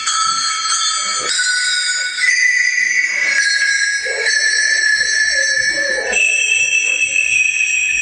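Sets of hand-held sleigh bells shaken in turn, each set sounding its own note, so the jingling carries a carol melody: one held jingling note changing to the next every one to two seconds.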